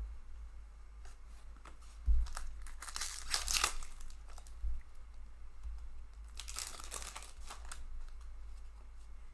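A hockey card pack's wrapper being torn open and crinkled by hand, in two rustling bursts about a second long each, the first just after a soft thump about two seconds in.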